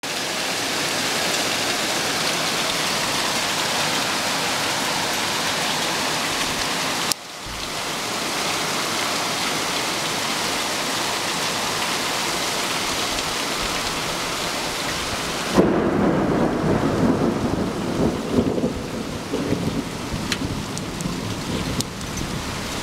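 Heavy night rain pouring down in an even hiss, with a brief break about seven seconds in. About two-thirds of the way through, a rumble of thunder rolls in over the rain and stays loud and uneven to the end.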